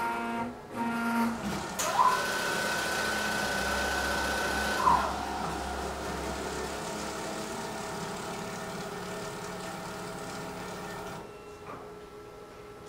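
Motor of a BIOBASE 2000 automated lab instrument running. A few short tones sound at the start. Then a whine rises about two seconds in, holds steady and falls away about five seconds in, over a steady hiss that cuts off suddenly about eleven seconds in.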